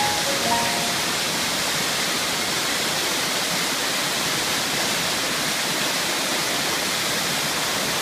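Waterfall cascading down rock: a steady rush of falling water. A few short notes of background music sound and end about a second in.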